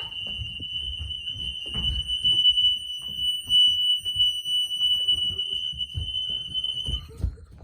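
Fire alarm sounding during a test: one continuous high-pitched tone that cuts off suddenly about seven seconds in, with low thumps and rumble underneath.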